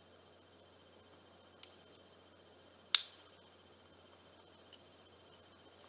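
Two short, sharp clicks about a second and a half apart, the second louder, from small parts and a tool being handled while a screw is put back into a compact digital camera.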